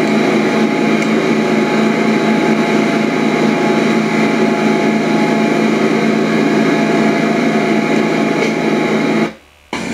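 Hydro-Tek hot-water pressure washer running steadily, a constant machine hum with a low steady tone; it cuts off suddenly near the end.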